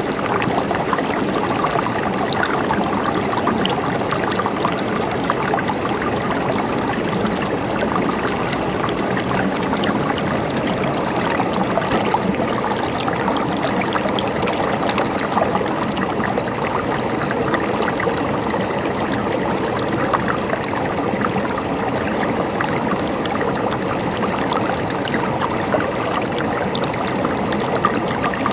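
Stream water flowing steadily over stones, a continuous babble and trickle without break.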